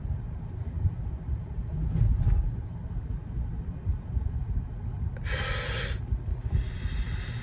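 Steady low road and engine rumble inside a moving car's cabin, with a short hiss about five seconds in and a fainter hiss starting near the end.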